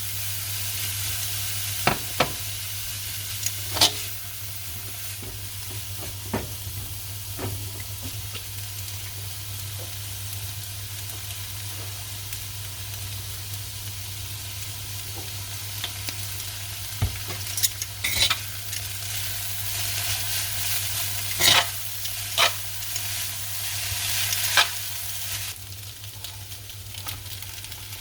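Food sizzling as it fries in a pan, with sharp clicks and knocks of a utensil stirring it every few seconds over a steady low hum. The sizzle dips briefly near the end.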